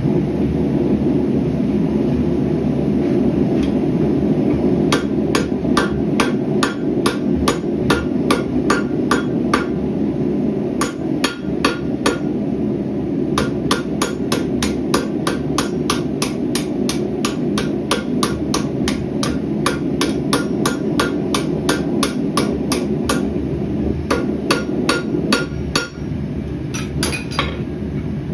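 Hand hammer striking hot rebar steel on an anvil while forging a knife blade: runs of about three ringing blows a second, broken by short pauses. A steady roar from the gas forge runs underneath.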